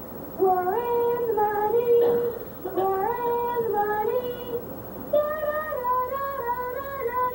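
Young voices singing a song in three phrases of held notes that step up and down, with short breaks about two and a half and five seconds in.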